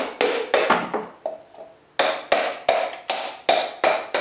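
Ball peen hammer striking a drained coconut shell about a dozen times, roughly three blows a second, with a short pause a little over a second in. Each blow is a sharp knock with a brief hollow ring. The shell is being cracked evenly all over so the meat can be pried out in small pieces.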